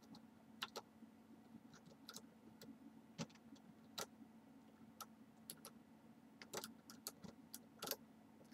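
Irregular, faint metallic clicks and ticks of a jiggler key being worked in a Union 6-pin oval lock cylinder, the tool rocking against the pins as it tries to open the lock, over a faint steady low hum.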